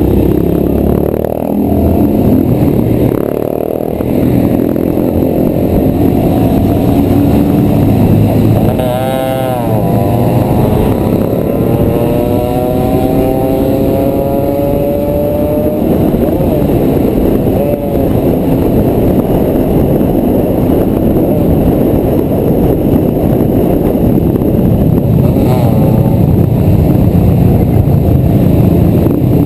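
Motorcycles running under way in a group ride, with engine and road noise heard from a bike-mounted camera. About nine seconds in an engine swoops briefly, then an engine note climbs steadily for several seconds as a bike accelerates.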